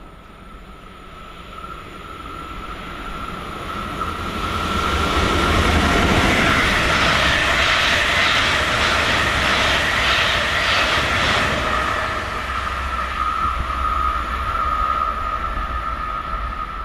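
RRX Siemens Desiro HC double-deck electric multiple unit passing, its wheel-on-rail noise swelling over the first few seconds, with a run of rhythmic clatter in the middle as the bogies go by. The train then fades slowly as it runs off, with a thin steady high whine throughout.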